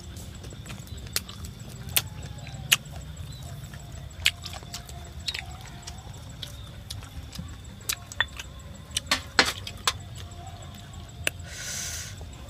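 Close-up eating sounds: scattered sharp lip smacks and chewing clicks, with a quick cluster around nine seconds in, over a low steady rumble. A short rustle of leafy greens near the end.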